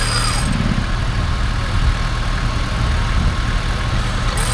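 Off-road 4x4's engine running steadily at a low idle.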